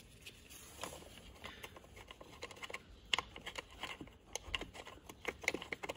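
Light, irregular clicks and scrapes of a Torx T20 screwdriver undoing the fixing screw of a plastic-cased control module mounted on the dashboard's metal frame.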